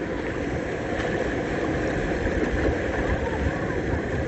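Steady rush of flowing river water, with faint voices in the background.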